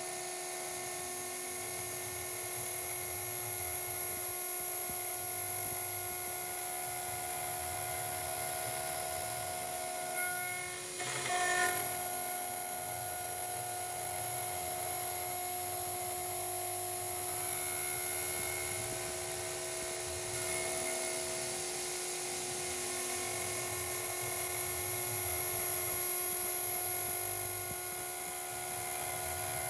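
CNC router spindle running with a steady high-pitched whine and a few steady lower tones as its small end mill cuts brass, milling a lock escutcheon. The sound drops away briefly about eleven seconds in, then resumes at once.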